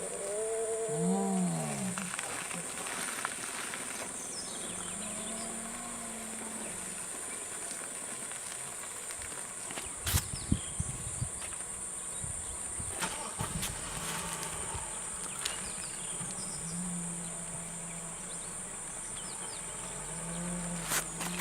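Hyena calls: one rising-and-falling call about a second in, then several lower, longer held calls later on, over a steady high chirring of insects. A few sharp clicks come around the middle.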